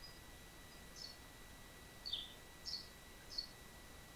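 Faint bird chirps: short, high calls, some slurring downward, repeated about once a second. A faint steady high whine runs underneath.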